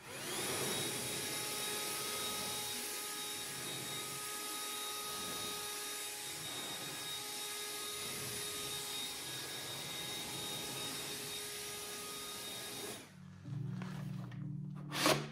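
Greenworks cordless leaf blower with a short car-drying nozzle spinning up and then running at steady full speed, a rush of air with a high, steady whine, blowing water off a car's paint. It stops about 13 seconds in and soft guitar music follows.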